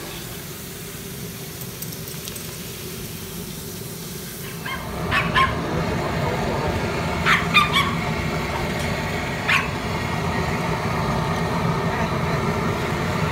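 A dog barking a few short times, about five seconds in, twice close together about seven and a half seconds in, and once more near ten seconds, over a steady rushing noise that grows louder about four and a half seconds in.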